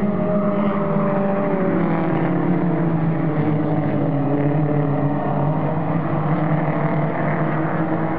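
A pack of four-cylinder mini stock race cars running together on the oval, with several engines heard at once. Their pitch dips and rises as they lift and get back on the throttle.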